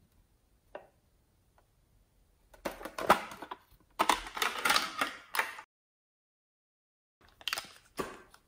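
Hands handling a Hello Kitty pencil case and small plastic makeup items, with runs of clicking and rattling from the case and its contents, two longer runs in the middle and a few short clatters near the end.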